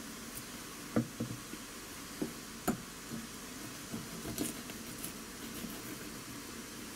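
Japanese kitchen knife cutting the hard scutes from a horse mackerel's tail on a plastic cutting board: several short knocks and scrapes of the blade against the board, the sharpest about one second in and just before three seconds, over a steady background hiss.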